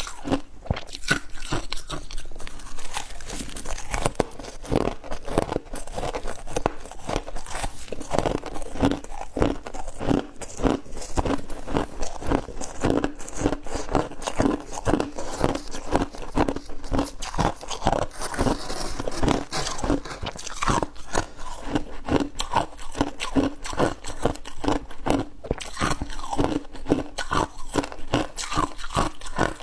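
Close-up crunching and chewing of ice frost in the mouth, a rapid, irregular run of crisp crunches that goes on without pause.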